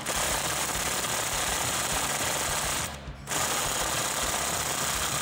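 Cordless half-inch impact wrench hammering on a strut's 21 mm top nut in two runs, about three seconds, a short pause, then about two and a half more. It fails to break the nut loose: the electric impact isn't strong enough.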